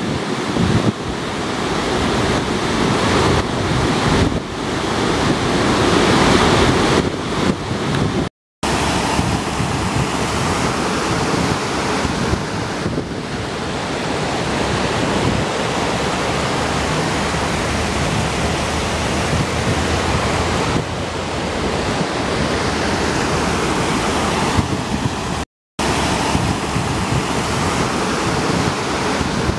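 Rushing floodwater of a river in spate, a steady loud noise of running water with wind buffeting the microphone. The sound cuts out for an instant twice, about a third of the way in and near the end.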